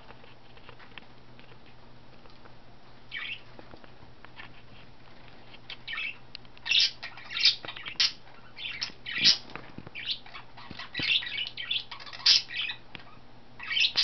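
Budgies (budgerigars) chirping in short, quick calls: one chirp about three seconds in, then a busy run of chirps from about six seconds on.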